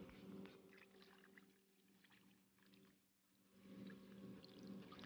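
Faint splashing and sloshing of water as a gold pan is worked by hand in shallow stream water, washing off the light material to leave the black sand. It fades almost to nothing in the middle and picks up again after about three and a half seconds, over a faint steady low hum.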